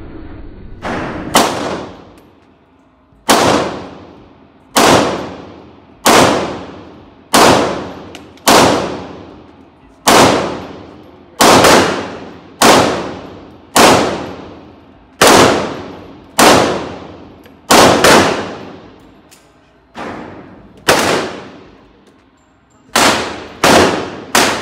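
9mm pistol fired shot by shot at an indoor range: about twenty loud shots, mostly a second or so apart, a few of them fainter, with a fast string of four near the end. Each shot rings on in a long echo off the range walls.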